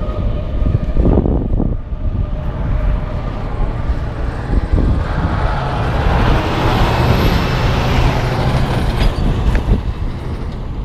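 Heavy semi trucks passing close by on the highway: a steady low rumble of engines and tyres, with one pass swelling to its loudest about two-thirds of the way through and then fading.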